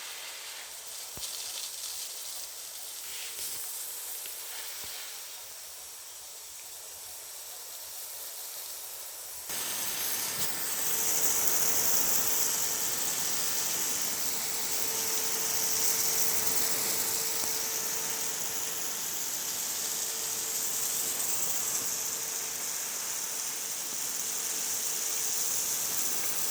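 A Skipper rain gun irrigation sprinkler throwing its water jet, a steady hiss that becomes suddenly much louder about nine seconds in. A faint steady tone runs underneath.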